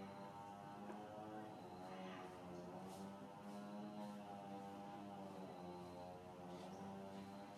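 A steady low droning hum with many overtones, wavering slightly in pitch.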